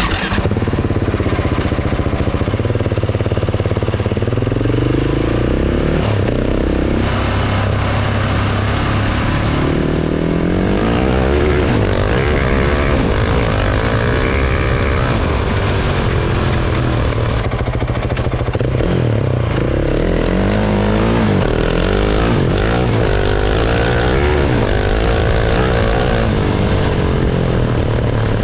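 2018 Husqvarna 701's single-cylinder engine running through a Dominator aftermarket exhaust, its pitch rising and falling again and again as it is revved and let back down.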